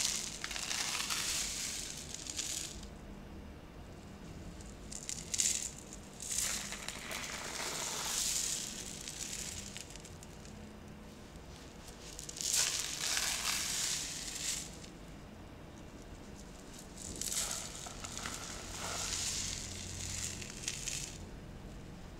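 Makeshift rain stick tipped back and forth: a hiss of small bits trickling through it, in several swishes of one to three seconds each with short pauses between.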